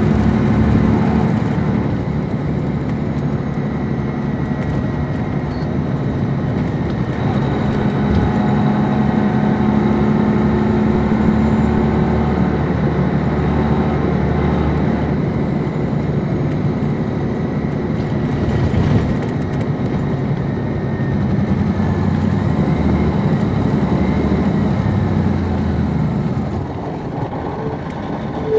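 Detroit Diesel Series 60 diesel engine of a 2002 MCI D4500 coach heard from on board while the bus drives, a steady running drone whose pitch rises and falls several times, as under acceleration and gear changes.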